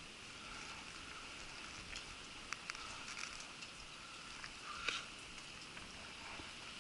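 Rain pattering faintly, with scattered small ticks and taps of drops.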